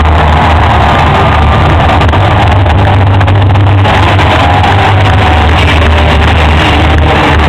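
Arena sound system playing loud music with a heavy, steady bass, presumably the soundtrack of the hype video on the scoreboard screen. The sound is close to full scale throughout.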